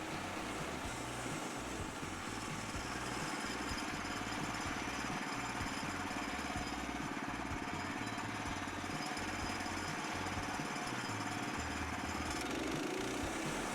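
Small gasoline engine of a portable band sawmill running steadily, with a shift in its sound about twelve seconds in.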